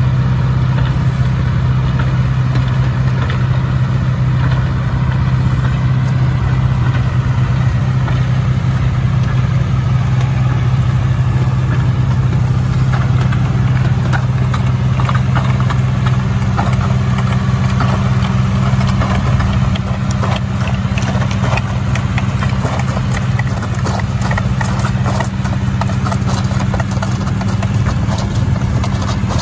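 A John Deere tractor's diesel engine running steadily under load while it drives a muck spreader, with a rapid, irregular clatter of the spreader flinging manure that grows busier about halfway through.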